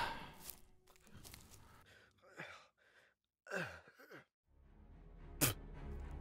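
A man's weary sighs and groans, each falling in pitch, then a short sharp breath near the end, the sounds of an exhausted, sick man stopping to rest. Soft film score drops away and comes back in under them.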